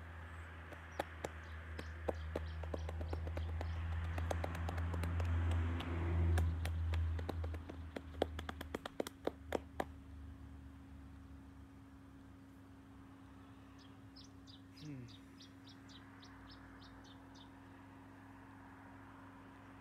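A low rumble swells and fades away over the first nine seconds, with many sharp clicks running through it. Later a bird gives a quick run of high ticks, about four a second, for three or four seconds.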